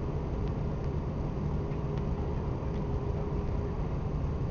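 Steady engine and airframe noise heard inside the cabin of an Airbus A340-600 taxiing: its four Rolls-Royce Trent 500 engines at idle thrust, a low rumble and a faint even hum.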